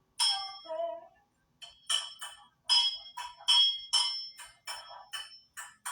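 A dozen or more bright metallic dings struck in quick, uneven succession, each ringing briefly at the same high pitches, like a small bell or a metal object being tapped.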